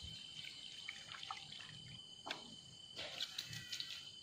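Small splashes and drips of a topwater lure being retrieved across the surface of the river: one sharp splash about two seconds in and a cluster of quick splashy ticks near the end, over a steady high drone of insects.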